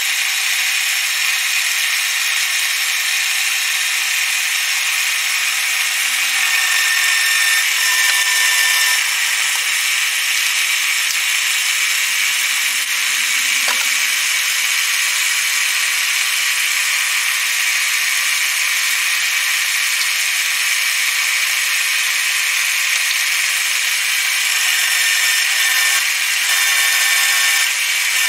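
Drill press running a twist drill through thick steel plate: a steady machine whine and cutting noise that holds at one level without breaks.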